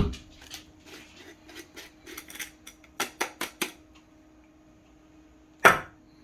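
Clicks and taps of a stainless-steel manual burr coffee grinder being handled just after grinding: a run of light clicks, then four sharper taps about three seconds in, and one louder knock near the end.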